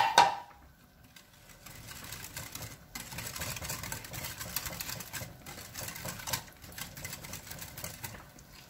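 Wire whisk beating runny cake batter by hand in a glass bowl: a fast, steady run of ticks as the wires hit and scrape the glass. It opens with one sharp clink, the loudest sound here.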